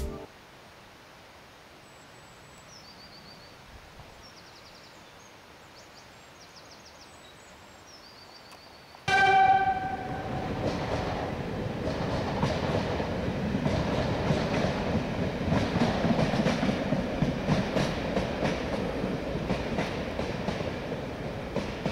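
After several quiet seconds with a few faint bird chirps, a Churnet Valley Railway heritage train suddenly sounds one blast of about a second. It then rumbles past, its wheels clattering rhythmically over the rail joints, loudest near the middle and easing toward the end.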